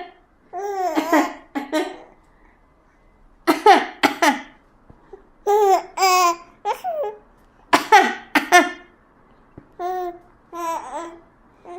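A baby laughing in short bursts, each set off by an adult's cough, about five rounds two seconds apart.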